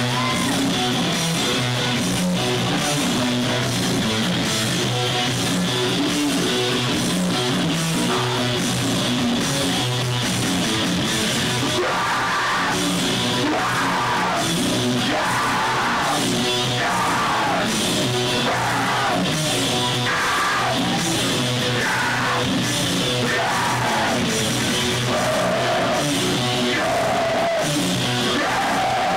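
Live heavy rock band playing loud: electric guitars and drum kit, with yelled vocals coming in in short repeated phrases from about twelve seconds in.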